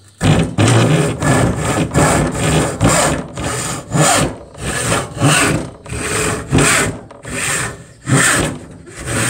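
Tyzack and Sons crosscut handsaw sawing across a piece of scrap timber held in a bench vise, a rasp of steel teeth through wood on each stroke. Long, full-length strokes at about two a second, starting suddenly at the outset.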